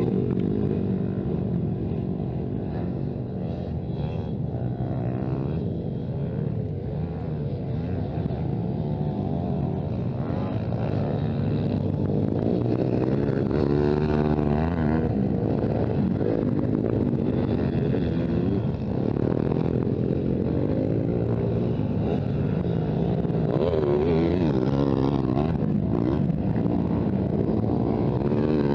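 Motocross motorcycle engines revving, their pitch repeatedly rising and falling as the throttle opens and closes, with more than one bike heard at once.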